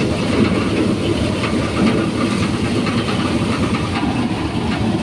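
Tractor-driven Panesar paddy thresher running steadily, a dense continuous mechanical rattle as grain passes through onto the sieve.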